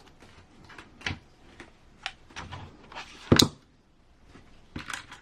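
Small plastic and metal kit parts being handled and set down on a workbench: a series of light clicks and taps, with one louder knock about three and a half seconds in.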